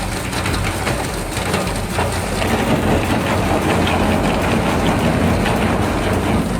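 Single-shaft industrial shredder grinding material at low speed: a dense, steady crackling and crunching over a low machine hum.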